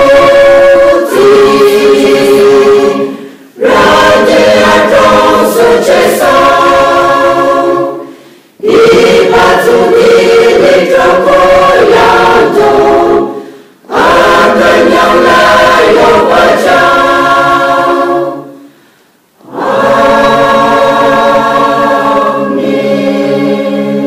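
Women's church choir singing unaccompanied, in sung phrases of about four to five seconds each with brief breathing pauses between them, four pauses in all.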